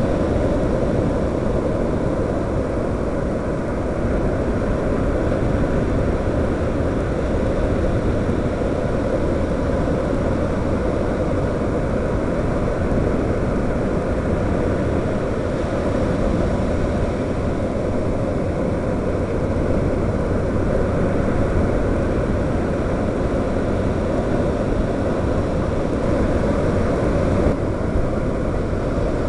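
Steady rushing noise of a quadcopter in flight: its propellers running, heard with wind over the microphone of its onboard camera.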